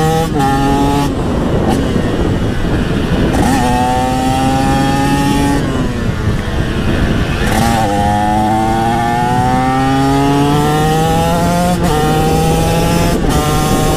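TM SMR 125 supermoto engine with an HGS exhaust, accelerating hard and shifting up through the gears. The pitch climbs in each gear and breaks at each shift, with a lull about midway before it climbs again. Wind rushes over the microphone throughout.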